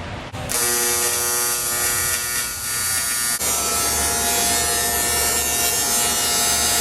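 A small electric power tool's motor running steadily with a high buzz, starting about half a second in, its tone shifting slightly a little past three seconds.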